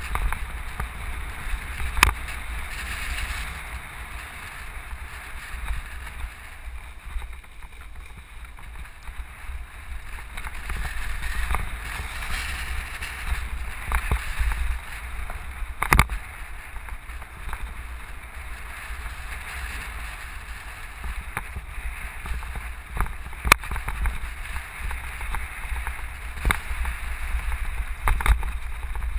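Vehicle driving slowly over a rough dirt road: a steady low rumble, with a few sharp knocks and rattles as it jolts over bumps.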